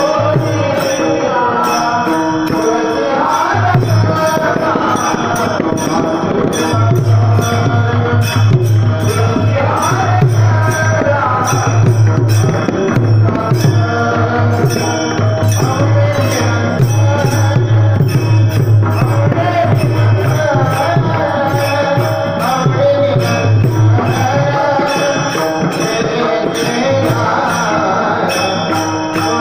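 Marathi devotional panchpadi sung in a melodic, ornamented voice over a sustained low drone, with percussion and metallic jingles keeping a steady beat.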